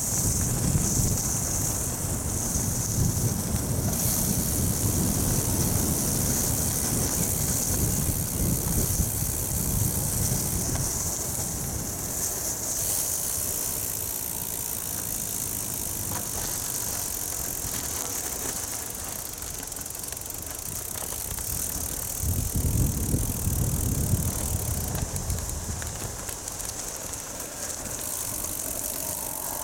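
Bicycle tyres rolling over a gravel road with a steady hiss, while gusty wind buffets the microphone as a low rumble. The rumble is heavy for the first third, eases off, then swells again briefly about three-quarters of the way through.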